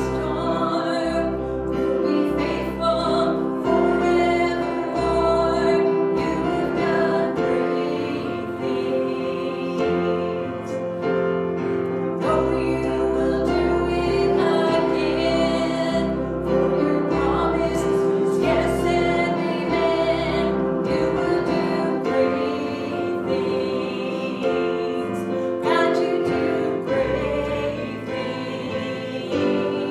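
Church worship music: voices singing over held instrumental chords, with a deep bass line.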